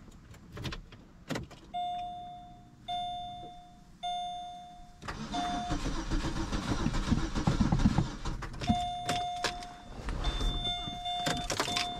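A Chevrolet's warning chime dings about once a second. Then the starter cranks the engine for about three seconds without it catching: the engine turns over freely and is not locked, but it will not start. The chime resumes after the cranking.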